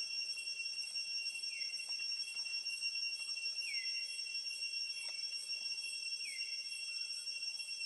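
Steady high-pitched insect drone, with short chirps repeating every second or two.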